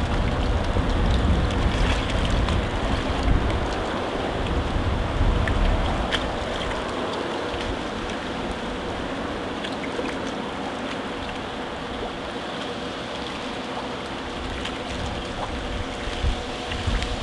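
Sea water washing and sloshing against concrete steps, with a low rumble of wind on the microphone in the first few seconds that fades away. A faint steady hum runs underneath.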